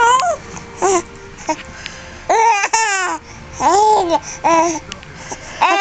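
A baby squealing and laughing in a series of short, high-pitched calls that rise and fall in pitch.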